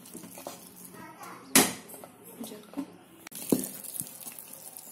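Ragi flour being stirred in a steel pot to make ragi mudda, the stirrer knocking and scraping against the pot: one sharp clank about a second and a half in and a softer knock later.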